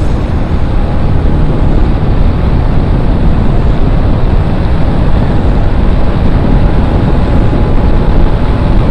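Heavy wind blast on a helmet-mounted phone microphone on a motorcycle at speed: a steady, loud rush that covers most of the engine.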